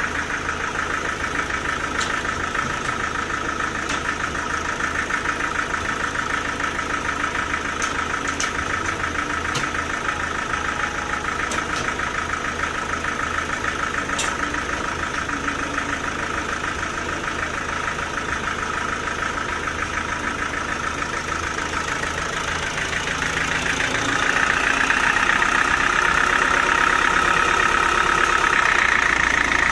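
Sawmill machinery running with a steady, engine-like drone that grows louder about 24 seconds in.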